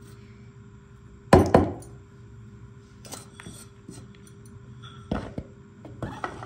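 Large kitchen knife and wooden cutting board knocking as chopped green chilies and coriander are scraped off the board into a bowl: two sharp knocks about a second in, then a few lighter knocks near the end.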